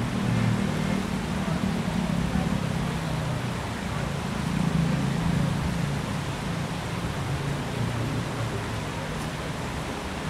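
Steady rush of the Tsavkisi-Tskali stream running over rocks and a small cascade, with a low rumble of city traffic that swells and fades underneath.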